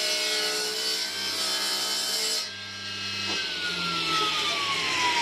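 Table saw cutting through a piece of wood over its running motor hum; the cut ends a little over two seconds in. About a second later the saw is switched off, and its whine falls steadily in pitch as the blade spins down.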